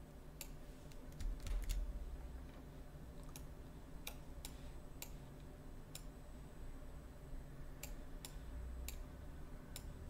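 Faint computer mouse and keyboard clicks, a dozen or so spread irregularly, over a low steady hum.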